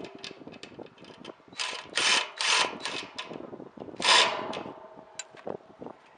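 Ratchet wrench clicking in a run of short strokes as the bolts on a satellite dish mount are tightened back down, with scattered metal clicks between the strokes.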